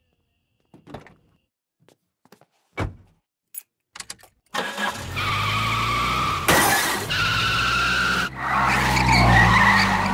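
A few scattered knocks and clicks, then a car engine starts about four and a half seconds in and runs steadily. There is a sharp loud burst about six and a half seconds in, and the engine swells louder near the end as the station wagon drives off.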